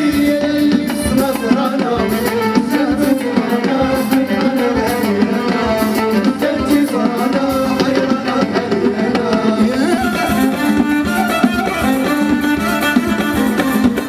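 Live Moroccan band playing amplified music on keyboard, electric guitar, drum kit and hand drums, with a steady driving beat.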